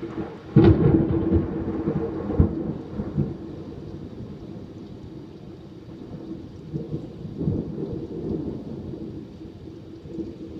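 Thunder: a sharp clap a little over half a second in and another crack about two seconds later, then rolling rumbles that swell again later on, over the steady hiss of rain.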